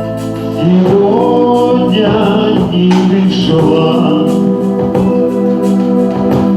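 Music: a Russian pop song playing, with sustained keyboard chords over a steady beat and some singing.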